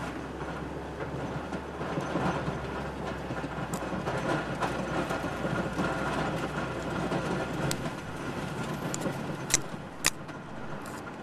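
Pickup truck with a snowplow blade driving forward while pushing snow, heard from inside the cab: the engine runs under load with a steady low hum and a rumbling rattle that swells for a few seconds mid-way. A few sharp clicks come near the end.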